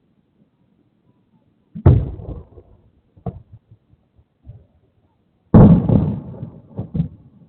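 Fireworks shells bursting: two loud booms about three and a half seconds apart, each trailing off over about a second, with a few smaller pops between and after, heard through an outdoor security camera's microphone.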